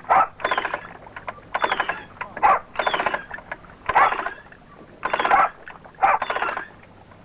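Thames sailing barge's topsail halyard gear creaking and clicking as the topsail is hauled up, in short squeaking strokes about once a second.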